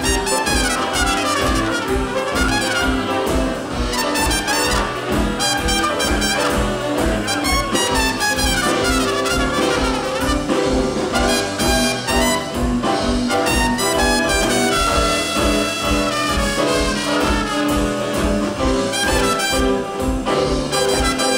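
Live jazz band playing an instrumental passage, with the trumpet to the fore over saxophone, archtop electric guitar and upright double bass, the bass keeping a steady beat.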